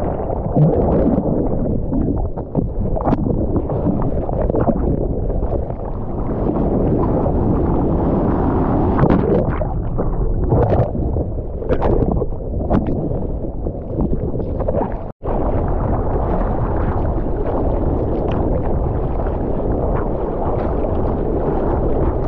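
Muffled rush and splashing of ocean water against a GoPro, with wind buffeting its microphone. The sound cuts out for an instant about fifteen seconds in.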